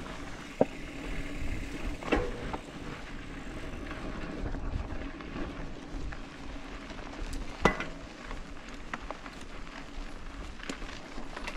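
Mountain bike rolling over a dirt trail: a steady rolling rush with scattered clacks and knocks from the bike, the sharpest about two seconds in and just before eight seconds in.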